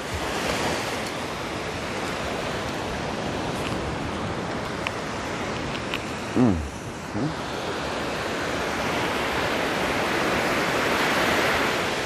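Small sea waves breaking and washing up a sandy beach after a storm: a steady surf wash that swells louder in the last few seconds. A short voice sound comes about six and a half seconds in.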